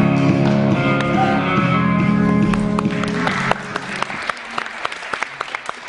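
Recorded music ending on a long held chord. Scattered applause from an audience starts before the chord ends and carries on after it stops, about three and a half seconds in.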